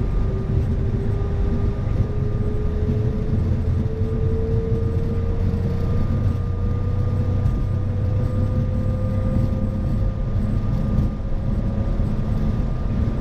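Boeing 737 MAX cockpit during the takeoff roll: the CFM LEAP-1B engines at takeoff thrust over a heavy runway rumble, the aircraft accelerating between 80 knots and V1. One tone rises slowly in pitch throughout.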